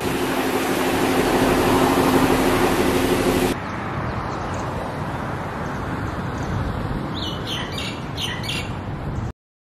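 Bus engine running close by with a steady low hum, cutting off abruptly about three and a half seconds in. A steady rush of sea and wind follows, with a bird giving a string of short chirps near the end. All sound stops just before the end.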